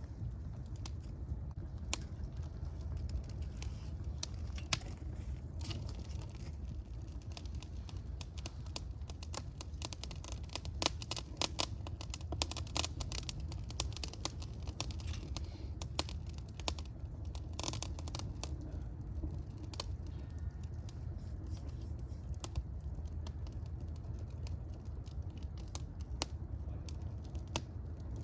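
Fire crackling, with scattered sharp pops over a low steady rumble; the pops come thickest a little before the middle.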